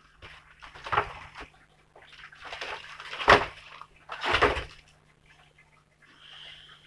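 Handling noise as things are picked up and moved about: several rustling, scraping bursts, the loudest about three seconds in and another just after four seconds.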